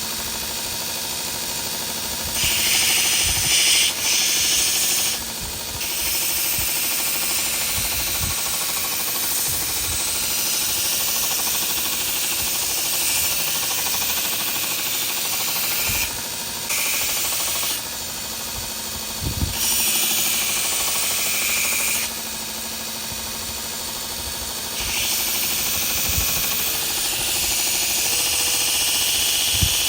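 Grizzly 2x42 belt grinder running with a 120-grit belt as a wooden knife handle is pressed against it. A loud sanding hiss comes and goes in passes of a few seconds over the motor's steady hum.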